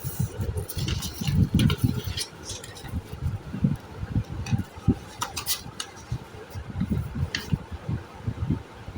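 Sheet of paper being handled and folded on a hard surface, with irregular dull taps and knocks and a few sharp crinkling clicks.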